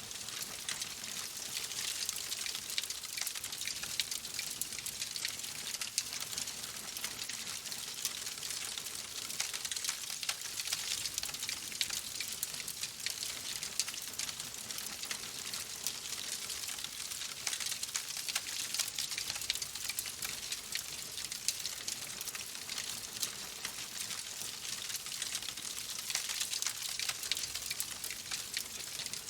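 Wood fire in a fireplace crackling steadily: a dense patter of small pops over a soft hiss.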